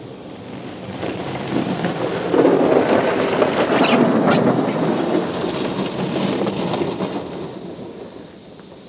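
Water spray from a PDQ Tandem Surfline car wash hitting the car's body and windows, heard from inside the car. The rush builds about a second in, stays loud for several seconds, then fades away near the end.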